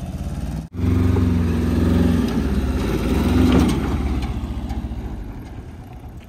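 A small mini truck's engine running as it drives past close by on a dirt track, growing louder to a peak a few seconds in and then fading away. The sound cuts out for an instant near the start.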